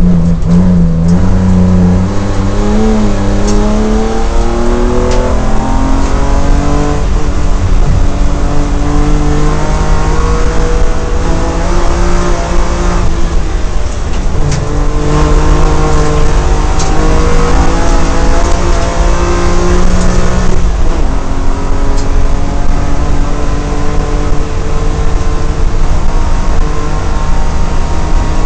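BMW M3 race car's engine heard from inside the cabin, revving hard under full throttle. Its pitch climbs, then drops back many times as the car changes gear and lifts for corners.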